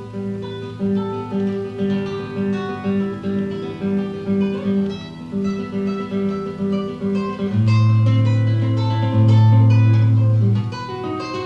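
Solo acoustic guitar playing evenly rolling arpeggios over a sustained bass line. A louder, deep bass note rings for about three seconds near the end.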